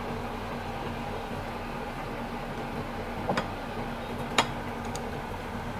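Steady room hum with two light clicks, about three and four and a half seconds in, of chopsticks touching a ceramic bowl while rice vermicelli is laid into it.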